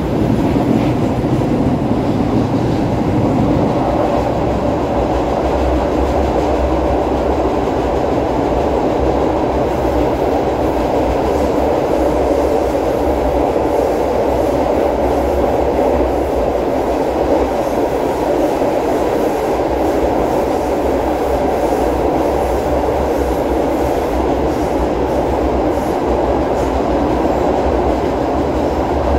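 Metrô-DF série 1000 electric multiple-unit train running steadily at speed, heard from inside the passenger car: an even rumble of wheels on rail.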